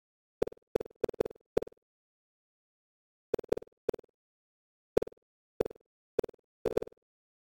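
Synthesized bounce sounds from a computer-generated surround-sound test: about a dozen short, dry pops with silence between them, each marking one of the virtual boxes hitting a boundary. They come irregularly: a quick run of five near the start, three a little past the middle, then single pops about half a second apart, ending in a close pair.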